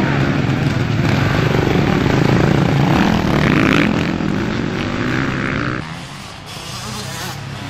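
Motocross bikes revving hard as they accelerate past on a dirt track, with the engine pitch rising and falling. About six seconds in it drops to a single, fainter bike.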